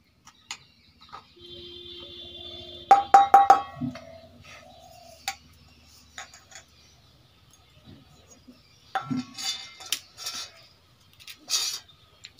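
Stainless-steel bowl and plate clinking as they are handled on a floor: a quick run of ringing metal clinks about three seconds in, then scattered lighter clicks and rattles.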